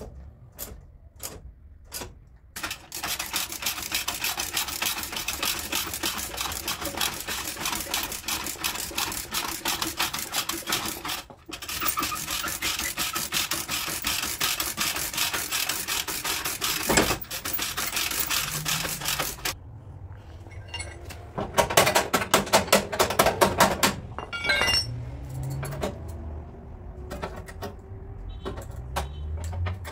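Rapid metallic tapping of a hammer on car body sheet metal, a long fast run of light blows, then a louder run of heavier strikes past the middle.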